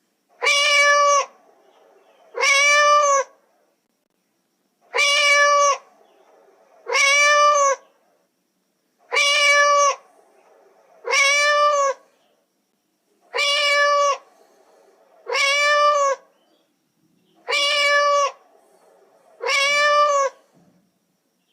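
Cat meowing: ten alike, drawn-out meows with a rise-and-fall pitch, coming in pairs about two seconds apart, each pair roughly four seconds after the last.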